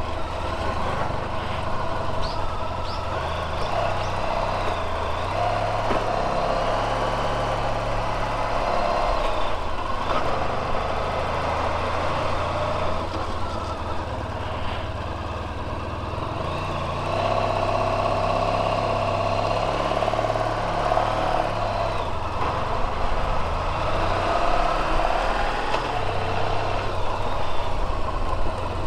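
Honda VFR1200X Crosstourer's V4 engine running steadily as the motorcycle is ridden along, its pitch rising and falling a little several times.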